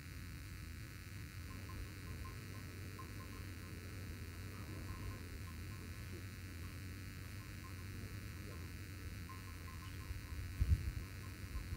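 Open-air background: a low steady hum, with faint repeated high chirps twice, and a sharp low knock about a second before the end.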